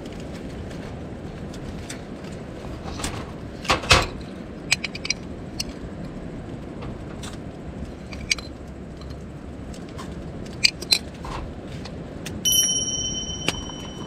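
Small clicks and clatters of instant coffee being made at a camp table, over a low steady background. About twelve seconds in, a metal kettle gives one bright ringing clink that dies away over about a second as it is lifted to pour.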